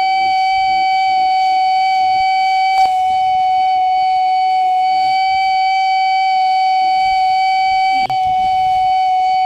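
Nissan/Daihatsu parking sensor buzzer sounding one continuous steady tone, the solid tone such sensors give when an obstacle is at the closest range. A short click about three seconds in and a brief drop-out about eight seconds in.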